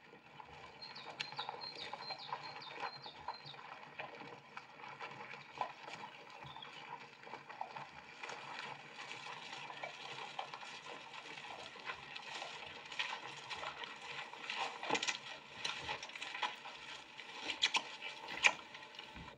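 Footsteps of several people walking on dry leaves and gravel, a scattered run of crunches and scuffs that grows busier in the second half, with a short series of high chirps about a second in. Heard from a film soundtrack through a TV speaker.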